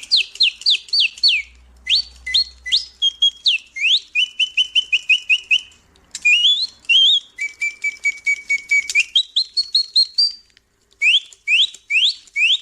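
Blaise Bontems mechanical singing-bird automaton whistling an imitation birdsong. Phrases of quick rising whistled sweeps alternate with fast runs of repeated chirps, with a short pause about ten and a half seconds in.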